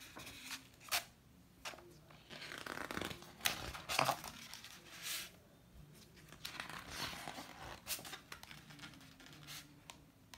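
Pages of a large hardcover book turned by hand: a series of paper swishes and rustles with a few sharp taps and clicks.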